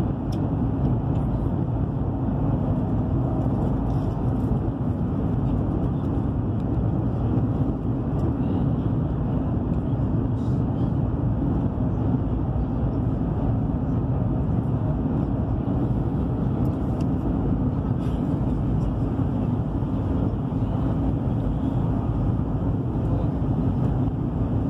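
Steady rumble and rush of a high-speed train running at speed, close to 300 km/h, heard from inside the passenger cabin. The sound stays even throughout, with no clear changes.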